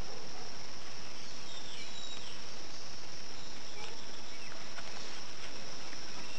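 Steady chorus of crickets, an even high-pitched trilling that holds unchanged throughout.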